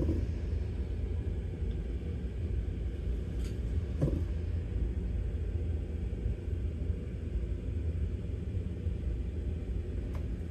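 A steady low rumble, with a light tap about four seconds in.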